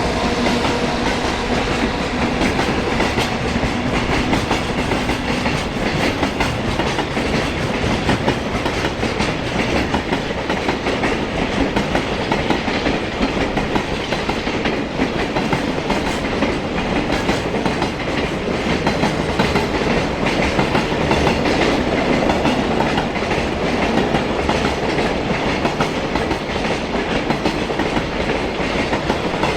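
Freight train of container wagons rolling past at speed, wheels clattering continuously over the rail joints. A steady hum in the first few seconds fades out about five seconds in.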